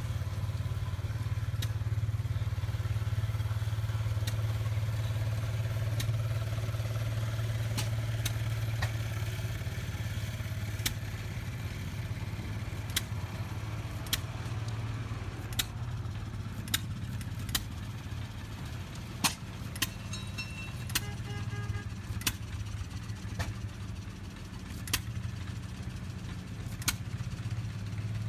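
Antique engine running steadily with a low hum, with sharp clicks at uneven intervals every second or two, more of them in the second half.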